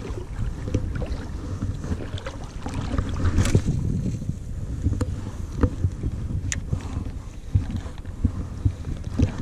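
Wind buffeting the microphone and water sloshing around a wading angler, with a few scattered sharp clicks from the spinning rod and reel being cast and worked.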